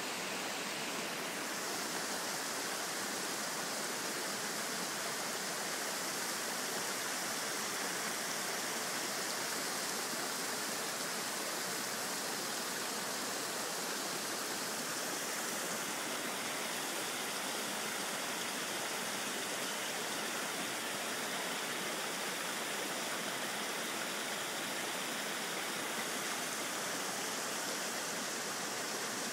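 Steady, unbroken rush of flowing stream water, with a faint thin high tone held through the second half.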